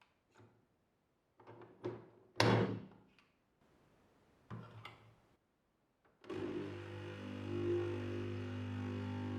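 Plastic clicks and knocks from a De'Longhi Nespresso capsule machine being loaded and closed, the loudest about two and a half seconds in. A little after six seconds its pump starts and runs with a steady buzzing hum as it brews.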